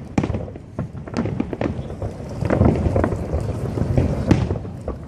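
Fireworks going off: many sharp bangs and crackles at irregular intervals over a steady low rumble, thickest in the second half.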